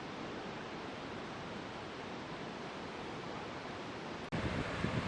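Steady rushing roar of a waterfall and river, an even noise with no pitch. A little over four seconds in it breaks off for an instant and comes back louder, with low gusts of wind on the microphone.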